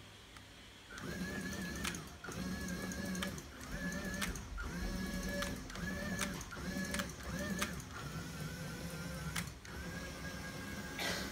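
1/14-scale RC hydraulic excavator's pump and valves working: a whine that starts about a second in and comes in short runs of about a second each, its pitch wavering under load, with sharp clicks between the runs as the boom, arm and upper structure are moved.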